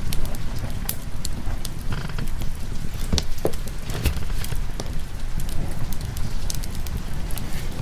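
Wood fire crackling with sharp, irregular pops over a steady rain hiss, under a continuous low rumble.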